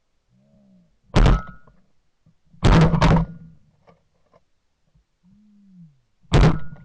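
Shotgun firing several times: a sharp blast about a second in, a doubled blast a little later, and another near the end. A faint call that rises and falls comes before the first and last shots.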